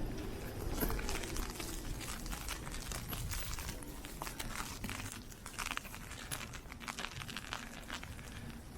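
Ice pellets striking a taut umbrella canopy in a dense, irregular run of sharp ticks, over a low rumble of wind.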